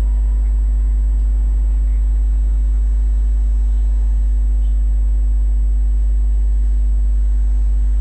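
A steady, unchanging low hum, with a few faint steady tones above it.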